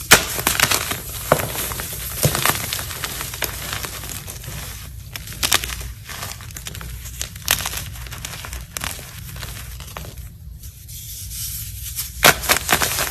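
Something brittle being crushed: a dense run of crisp crunches and sharp clicks that thins out briefly before a burst of louder cracks near the end.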